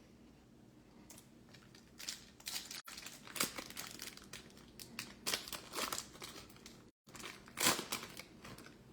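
Foil trading-card pack wrapper crinkling and tearing as it is opened by hand, in a run of irregular crackles.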